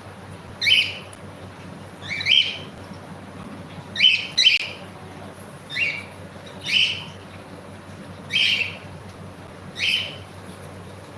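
Pet cockatiel giving short chirping calls, about eight of them, repeated every one to two seconds.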